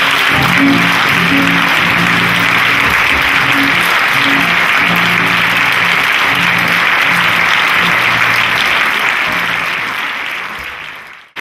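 Theatre audience applauding, with music playing underneath in low sustained notes; it all fades out near the end.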